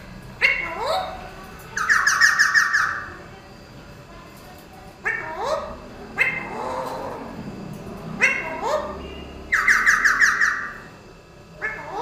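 Alexandrine parakeets calling: short rising whistled notes, then two loud harsh screeching bursts of rapidly repeated notes, each about a second long, the first about two seconds in and the second near ten seconds.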